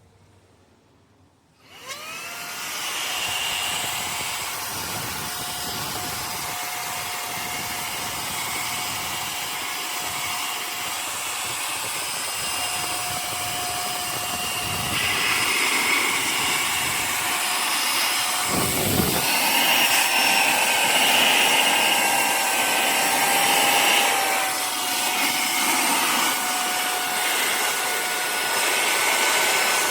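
Cordless handheld vacuum cleaner switched on about two seconds in, its small motor spinning up with a rising whine and then running steadily. Around two-thirds through there is a short thump, and the whine moves slightly higher in pitch and runs a little louder.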